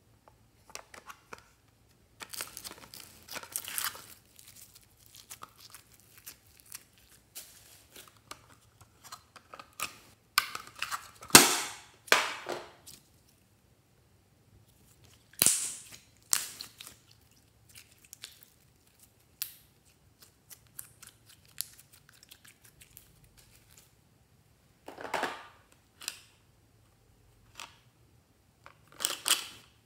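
Hands handling small plastic toy cases and packaging, heard as scattered rustles, crinkles and sharp plastic clicks with quiet gaps between them. The loudest click-and-rustle bursts come about a third and halfway in.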